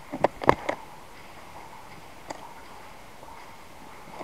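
Footsteps on a gritty, debris-strewn concrete floor: three or four sharp steps in the first second, then stillness with one faint click about two seconds in.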